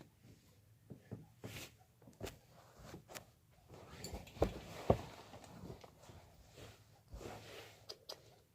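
Faint rustling and scattered small knocks of things being handled and moved about, with two louder thumps about four and a half and five seconds in.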